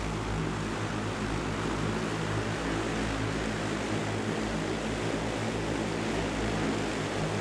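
Volocopter VoloDrone, an electric heavy-lift multirotor drone with 18 rotors, hovering low. Its propellers make a steady droning hum over a rushing whoosh of air.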